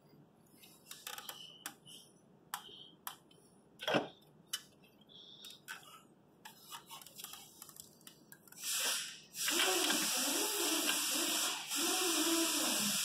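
Metal clinks and taps of parts being handled in an engine bay, then about nine seconds in a small electric power tool starts: a short burst, then a longer run with its motor speed wavering under load.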